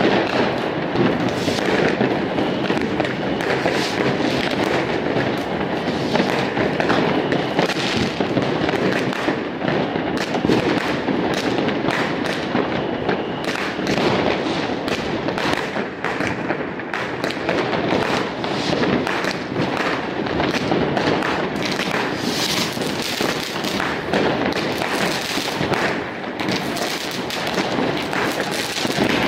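Fireworks going off in a dense, unbroken barrage of rocket bangs and crackling, with many sharp reports overlapping throughout.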